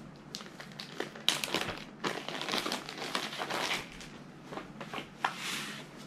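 Clear plastic bag crinkling as a folded T-shirt is pulled out of it and handled. The crackling is irregular, with sharp snaps about a second in and again near the end.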